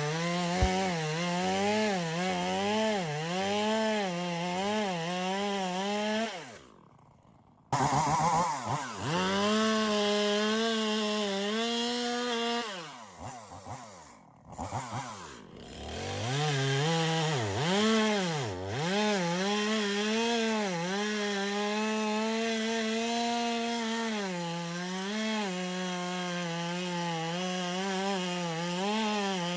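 Two-stroke chainsaw running at high revs through a log, its pitch dipping and recovering again and again as the chain loads up in the wood. Twice the throttle comes off and the engine drops toward idle before revving back up.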